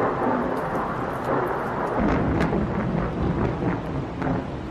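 Thunder from a lightning strike: a sharp crack as it begins, rolling into a rumble that swells again, deeper and crackling, about two seconds in, then dies away near the end.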